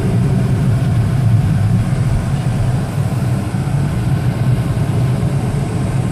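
Car engine and road noise heard from inside the cabin while driving, a steady low rumble that cuts off suddenly at the end.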